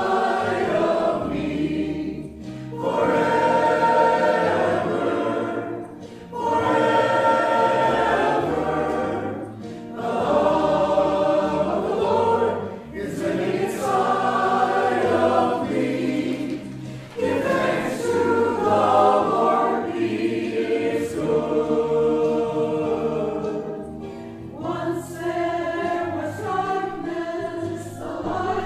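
Church choir of mixed men's and women's voices singing an anthem in phrases of a few seconds, with short breaks between them.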